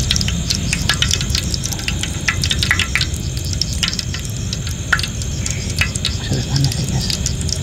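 Portable butane gas stove burning with a steady low rumble under a small pan of cooking oil that is heating toward frying temperature, with scattered small crackles from the oil.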